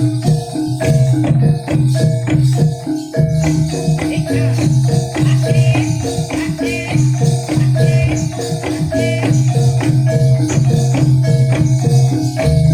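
Gamelan music accompanying a jaranan dance: metal mallet instruments play a fast, evenly repeating pattern over a sustained low tone, with shaken, rattling percussion.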